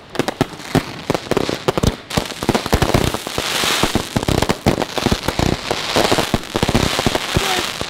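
Fireworks going off in quick succession: a dense run of bangs and pops, with stretches of crackling hiss about halfway through and again near the end.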